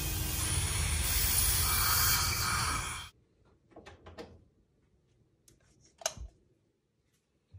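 Dental suction hose drawing air and fluid at a patient's mouth, a steady loud rushing hiss that cuts off suddenly about three seconds in. A few faint clicks and knocks follow.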